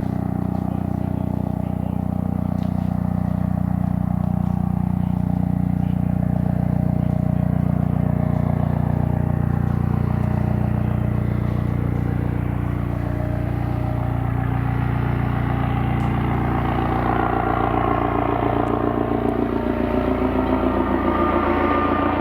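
Airbus AS365 Dauphin twin-turbine rescue helicopter's engines and rotor running steadily, getting louder with a fast rhythmic rotor beat in the last few seconds.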